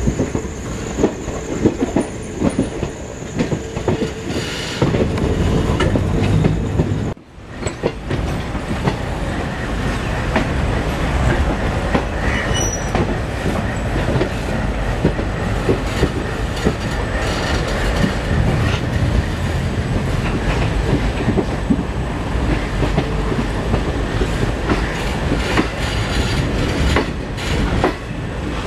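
Passenger train coach wheels clattering over rail joints and points, heard from the moving train, with a steady rumble. The sound cuts out briefly about seven seconds in.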